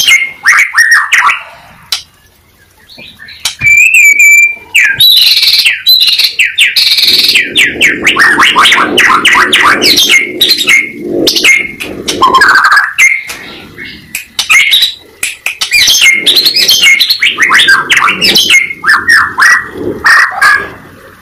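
A pied (blorok) white-rumped shama singing loudly in full, challenging song: a varied run of whistled phrases with a clear held whistle about four seconds in, then long bursts of rapid repeated notes and chattering phrases.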